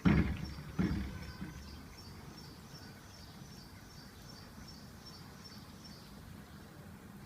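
Two loud thumps less than a second apart, then a faint, high chirp repeated about three times a second for several seconds.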